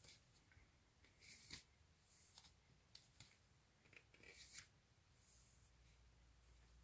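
Faint rustle and scrape of cardboard LP sleeves being slid and flipped by hand: a few short brushing strokes, the loudest about one and a half seconds in and again around four and a half seconds in.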